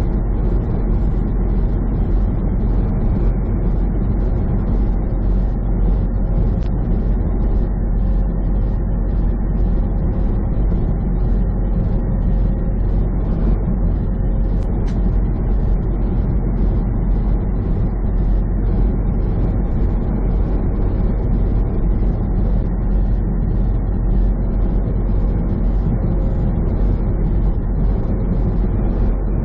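Semi truck cruising at highway speed, heard from inside the cab: a steady, loud engine drone and road noise with a deep rumble.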